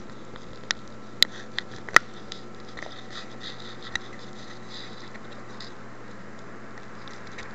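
Room tone: a steady faint hum and hiss, broken by a handful of sharp clicks in the first four seconds, the loudest about two seconds in.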